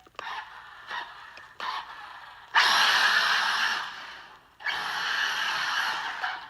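Arrma Senton 6S electric RC truck driving in throttle bursts: a few short spurts, then two long runs of about two seconds each, the first starting about two and a half seconds in.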